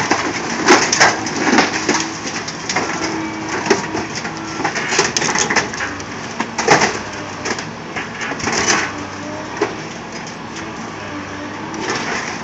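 An old Ford pickup truck's body crunching and cracking as an excavator's bucket and thumb crush it, in many irregular loud crunches. Beneath them runs the excavator's engine, a steady hum.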